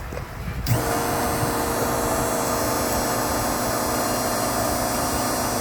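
Electric treadmill motor starting abruptly about a second in and running steadily at high speed with a hum. The runaway speed is the fault behind error code 6, traced to a damaged IGBT transistor in the motor driver.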